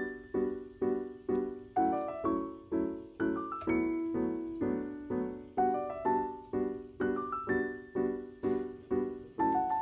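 Background music: a keyboard, piano-like, playing a steady run of struck chords, each fading before the next, about two to three a second.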